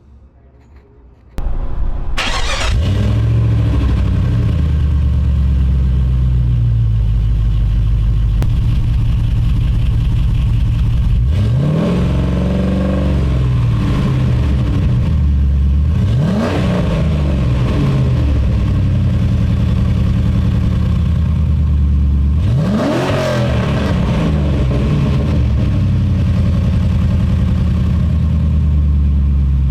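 2004 Jeep Grand Cherokee's 4.7-litre V8 starting up about a second and a half in, then idling through a Hooker Aero Chamber muffler, Tri-Y headers and 3-inch exhaust. It is revved three times, each a quick rise in pitch that falls back to idle.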